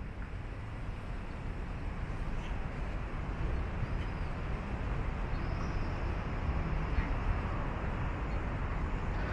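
Steady outdoor background rumble of the kind heard around an airport, heaviest in the low end and slowly growing louder, with a few faint high chirps.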